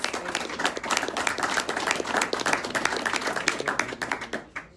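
Audience applauding in a council chamber, many hands clapping densely and then dying away near the end.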